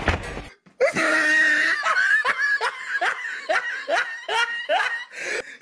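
Someone laughing hard in a rhythmic run of 'ha-ha' bursts, about three a second, each dropping in pitch; the laughter starts about a second in after a short break.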